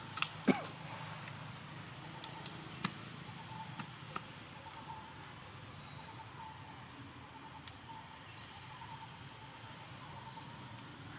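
Outdoor ambience with a steady high insect drone. There is one short falling squeak about half a second in, and a few light clicks and taps scattered through.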